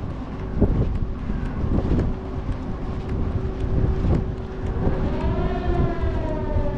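Wind buffeting the microphone over a steady low hum; about five seconds in, a long horn-like tone with several overtones sweeps up and then slowly sags in pitch.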